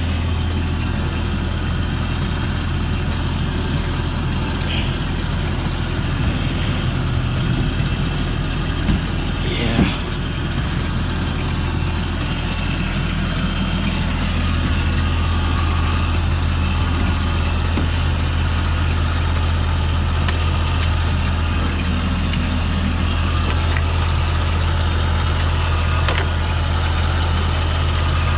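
Jeep engine idling steadily, with a brief knock about ten seconds in.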